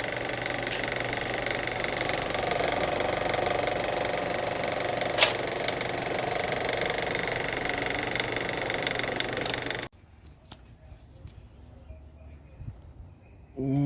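A steady, loud mechanical buzzing rattle that cuts off suddenly about ten seconds in, followed by quieter background noise.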